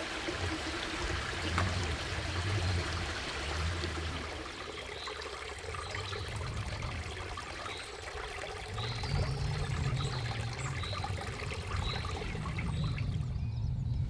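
Steady rush of running water, with patches of low rumble. Through the second half a small bird repeats a short high call roughly every three quarters of a second.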